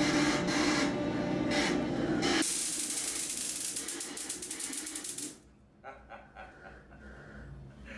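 Dark background music, then about two and a half seconds in a loud, fast-crackling hiss that lasts about three seconds and cuts off suddenly, leaving only faint sounds.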